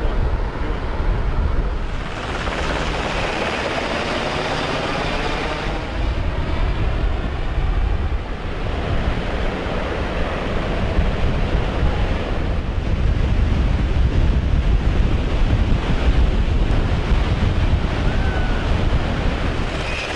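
Wind buffeting the microphone over breaking ocean surf, with a helicopter flying at a distance.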